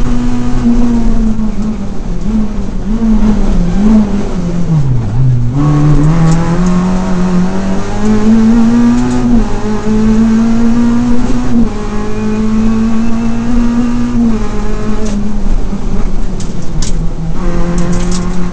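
Renault Clio RS rally car's four-cylinder engine at full racing effort, heard from inside the cabin. The revs drop sharply about a quarter of the way in, then climb again through the gears with several upshifts.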